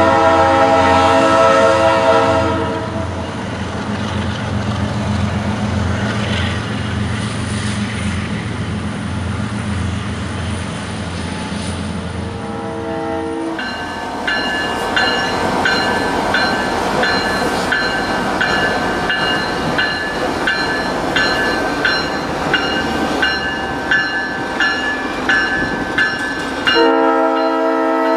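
Leslie S5T five-chime air horn on a CSX diesel locomotive blowing: a long blast that stops about two seconds in, a short blast around the middle, and another blast starting near the end, over the rumble of the passing train. Through the second half a bell rings steadily, about twice a second.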